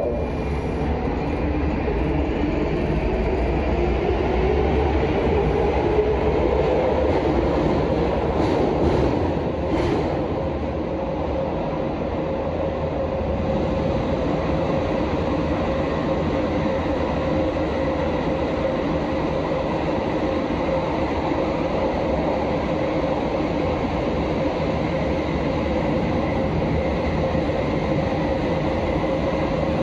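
Prague Metro line A train running between stations. The traction motor whine rises in pitch over the first several seconds as the train accelerates, then holds at a steady pitch while it cruises, over constant wheel-on-rail rumble. A few clicks come about nine seconds in.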